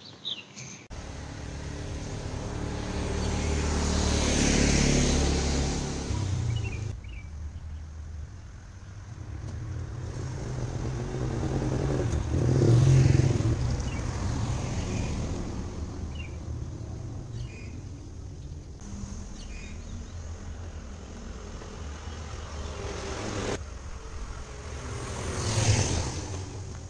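Road traffic: cars passing one after another, each swelling up and fading away, over a low steady rumble.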